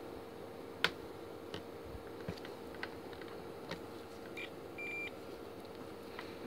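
Digital multimeter's continuity buzzer giving one short high beep about five seconds in, with a brief chirp just before it. Light clicks and taps of test probes on a phone circuit board are heard throughout, the sharpest about a second in.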